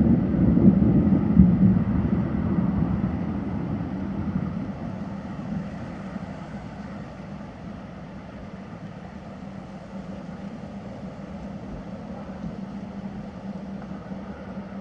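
Distant thunder rumbling, loudest in the first two seconds and dying away over about five seconds, over a steady low hum.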